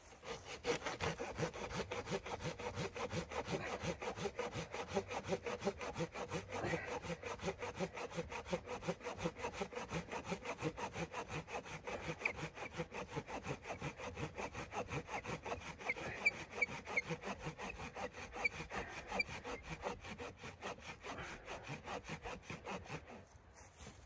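Hand saw with a red handle cutting through a dry, dead log, with steady back-and-forth strokes several times a second. The sawing stops just before the end.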